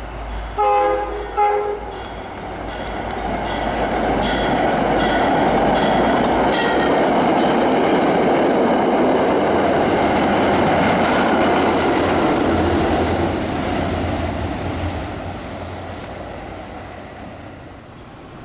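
MBTA commuter rail train, diesel-hauled, sounding two short horn blasts as it approaches, then passing close by with loud rail noise and wheels clacking over rail joints about twice a second. A thin, high whine comes in as the last cars go by, and the noise fades away.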